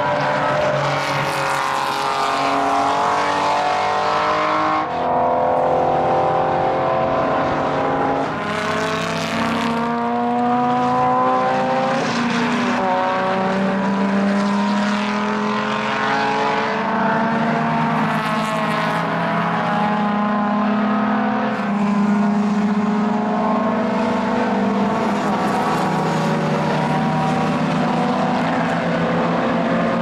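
Several historic racing cars accelerating hard away up the straight, their engines running at high revs over one another. Pitch climbs as they accelerate and drops back at gear changes, with a sharp drop about twelve seconds in.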